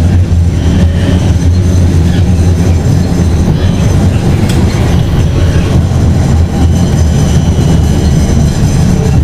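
Tram heard from inside the passenger cabin while running along street track: a steady loud rumble of wheels on rails and running gear, with a faint high whine over it.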